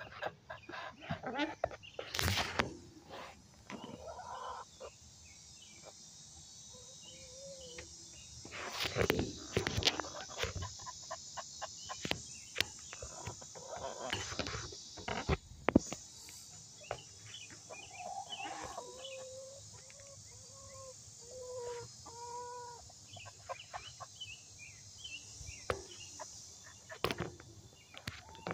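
Domestic hens clucking in short, pitched notes, with a run of them in the second half. A few sharp knocks are scattered through.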